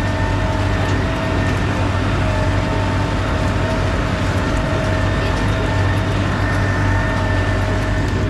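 Tractor engine running at a steady speed under way, heard from on board, with a steady whine above the low engine drone and no change in revs.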